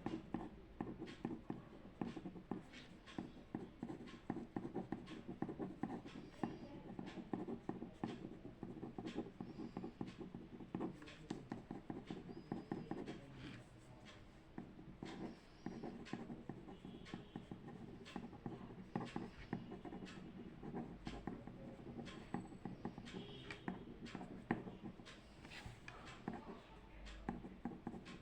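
Writing by hand on paper: a steady run of quick, irregular scratches and small taps from the writing tool.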